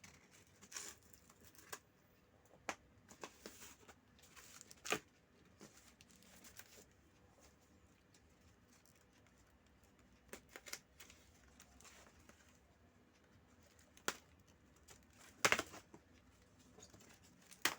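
Packaging being torn and cut open by hand: scattered rustles, scrapes and sharp clicks of wrapping and tape coming away, with a louder crackle near the end.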